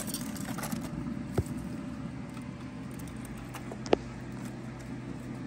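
A foil-wrapped brisket being handled: light crinkling of aluminium foil, a soft knock about a second and a half in and a sharp click near four seconds in, over a steady low outdoor hum.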